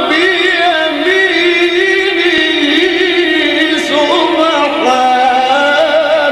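A man reciting the Quran in a melodic, chanted style, holding long ornamented notes with wavering pitch. About four seconds in, the line rises to a higher pitch.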